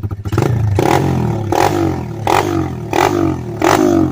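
125cc pit bike's single-cylinder four-stroke engine, with a NIBBI carburettor and a slip-on exhaust, blipped on the throttle over and over in a throttle response test. From a steady idle it starts revving about a third of a second in, one sharp blip about every three-quarters of a second, and the revs fall back between blips.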